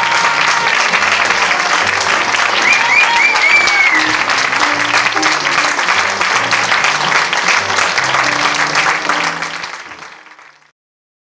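Audience applauding over closing music. The applause and music fade out together near the end.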